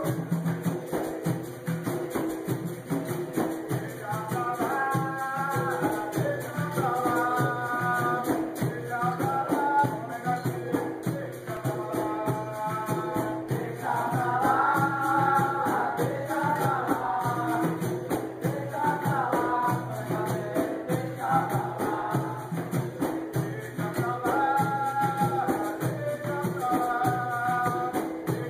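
Capoeira bateria playing: berimbaus with caxixi rattles, a pandeiro and an atabaque drum keeping a steady rhythm, with voices singing a chorus in repeated phrases over it.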